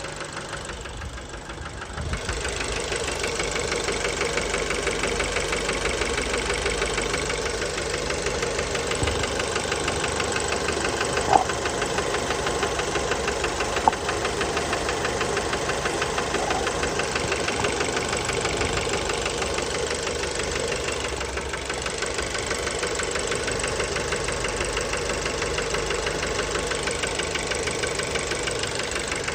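Fiat 1.4 T-Jet turbocharged four-cylinder petrol engine running steadily with a fast, even knocking rattle; the knock later proved to be worn connecting-rod bearings. It gets louder about two seconds in, and two sharp clicks sound near the middle.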